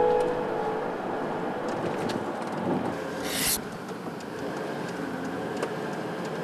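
Steady outdoor traffic noise from passing vehicles, with a short hiss about three seconds in.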